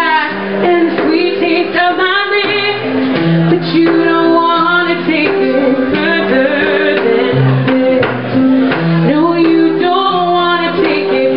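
A woman singing a song with instrumental accompaniment, her voice moving over steady held instrument notes.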